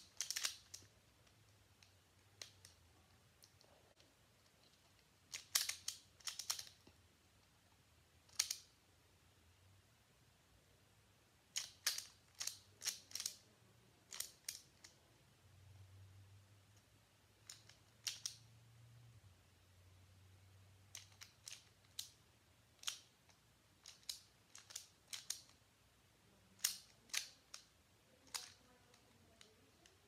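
Plastic twisty puzzles, a Pyraminx and then a Rubik's-type cube, being turned quickly by hand: scattered clusters of sharp clicks as the layers snap round, with short pauses between bursts.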